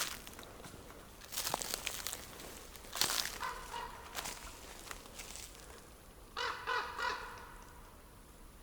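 Rustling steps through forest litter, then harsh pitched calls from a distant animal: one short call about three and a half seconds in and three quick calls in a row near the end.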